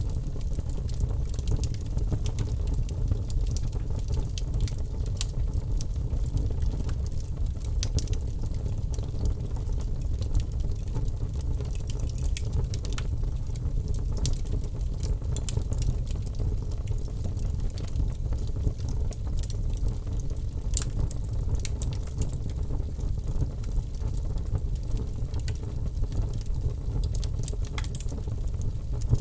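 Wood fire crackling, with frequent small irregular pops and snaps over a steady low rumble of burning.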